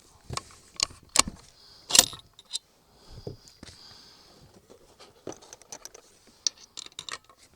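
Irregular metallic clicks and clinks from handling a Savage Model 10 bolt-action .308 rifle between shots, the loudest clack about two seconds in.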